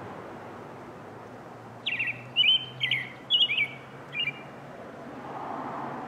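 American robin singing: a run of about five short, clear whistled phrases, some sliding downward, starting about two seconds in and lasting about two and a half seconds.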